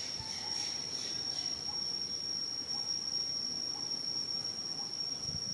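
Insects droning in the trees: one steady, high-pitched tone that holds without a break.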